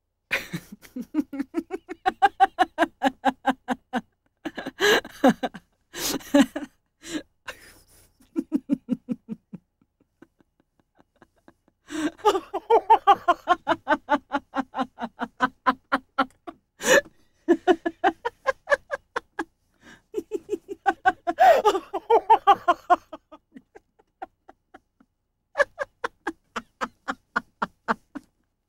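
A person laughing hard in several long bouts of rapid, rhythmic ha-ha-ha pulses, with short pauses between the bouts.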